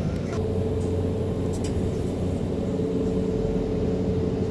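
Steady low hum of refrigerated supermarket display cases.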